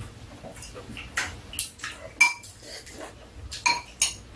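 Metal spoons and chopsticks clinking against bowls as food is scooped up: about half a dozen sharp clinks, a few ringing briefly.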